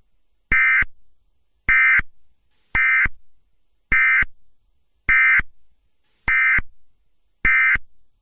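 Electronic emergency-alert tones: short beeps of about a third of a second, repeating evenly about once a second, seven times.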